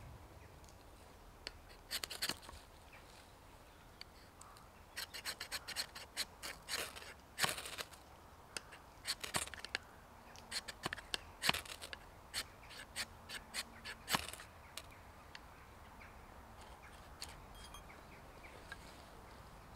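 Steel knife blade (Glock FM 78 field knife) scraped down a ferrocerium rod in about a dozen short, rasping strokes, some in quick clusters, to strike sparks.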